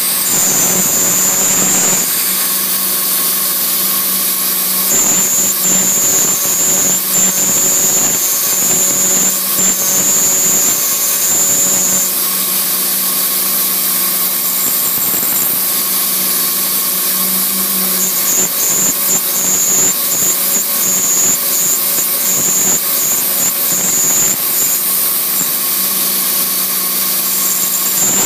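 Milling machine spindle running a small end mill through a plastic plate: a steady high-speed whine and cutting hiss. A very high-pitched squeal comes and goes in stretches of several seconds.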